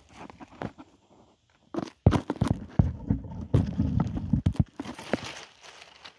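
Dry leaves and twigs crunching and rustling close to the microphone as a dog moves about in the leaf litter beside it, with clicks and low thumps, densest from about two seconds in.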